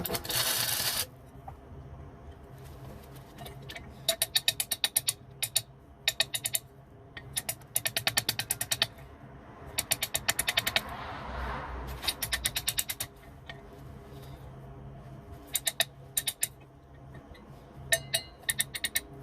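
Ratcheting hand tool clicking in quick runs of rapid clicks with pauses between, as a bolt is being tightened.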